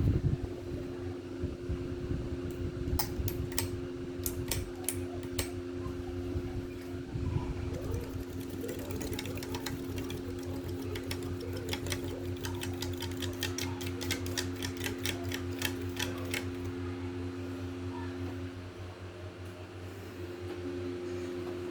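A room full of ceiling fans running together: a steady electric motor hum over a low whir of moving air. A fast run of light clicks and ticks comes in through the middle, and the hum changes briefly near the end.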